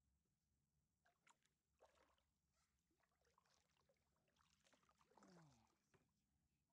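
Faint kayak paddling: a paddle dipping and splashing, with water trickling off the blade. About five seconds in, a short tone falls in pitch.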